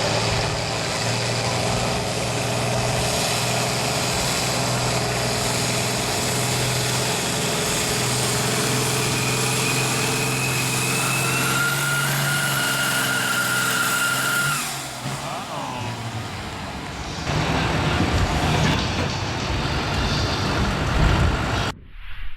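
A pulling tractor's diesel engine runs hard under load down the track. A high whine rises over it in the middle, then the engine falls off about fifteen seconds in. A louder, rougher stretch follows before the sound cuts off just before the end.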